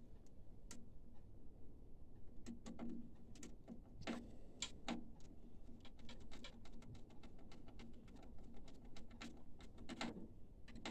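Irregular small clicks and taps of hands working inside an inkjet printer, handling its plastic and metal parts, over a faint steady hum.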